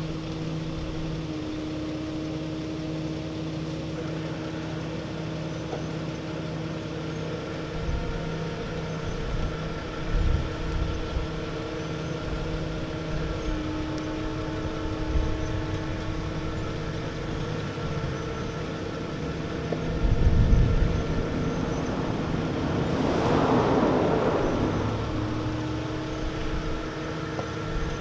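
Vehicle engines running at a low, steady idle, the hum shifting slightly in pitch a couple of times, with a few low thumps and a loud hissing rush about 23 seconds in.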